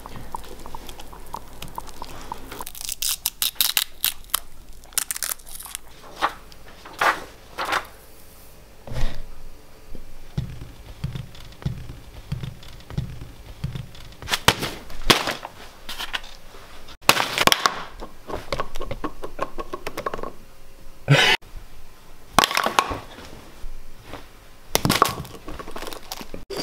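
Close-up handling sounds of an avocado: crackling and crinkling as the label sticker is picked at and peeled, then a run of low thuds and several sharp knocks as the fruit is rolled and set down on a hard countertop.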